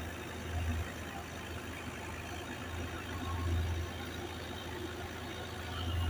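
An engine running steadily, a low hum that swells briefly about half a second in and again around three and a half seconds in.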